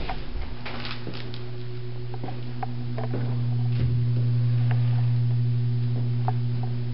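A steady low hum, growing a little louder in the middle, with scattered light clicks and taps over it.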